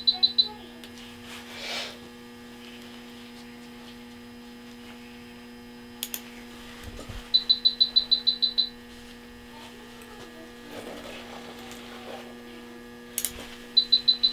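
Electronic alarm of the anaesthesia patient monitor: bursts of about ten rapid high-pitched beeps, repeating about every six or seven seconds, over a steady electrical hum. Two brief sharp clicks come between the bursts.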